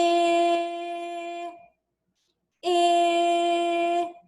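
A woman's voice holding a steady vowel sound twice, each time for about a second and a half at one pitch, with a short silence between: the short "i" sound as in "iguana", drawn out for children to copy.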